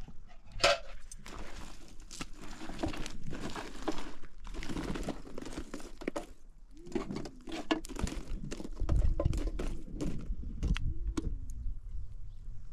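Rustling and crinkling with many small clicks and knocks, as of things being handled; a low rumble comes in about nine seconds in.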